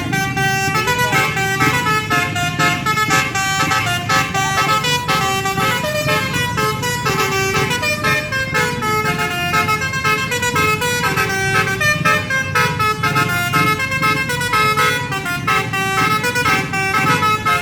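Basuri multi-tone 'telolet' bus horn playing a fast melody of stepped horn notes, over a steady low rumble.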